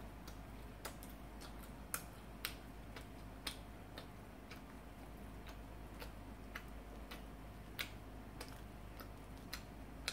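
Light, irregular clicks, about two a second, from eating with chopsticks.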